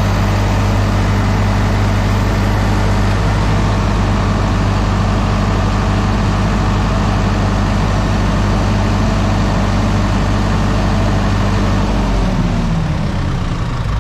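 Diesel generator set engine running steadily, then slowing near the end with its pitch falling as it winds down.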